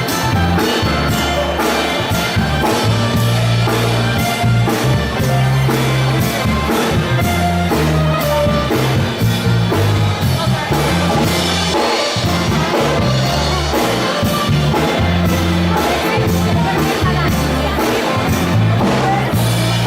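Party music with a steady drum beat and a strong bass line, with some singing.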